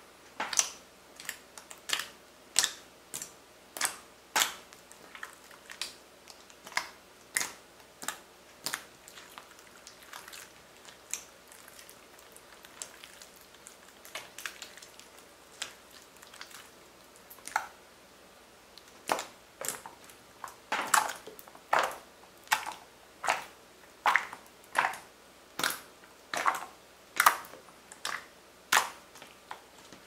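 Clear slime being squeezed, pressed and kneaded by hand, giving a run of short wet squelches and popping clicks as air is squeezed out. The pops are sparser in the middle and come faster and louder in the last third.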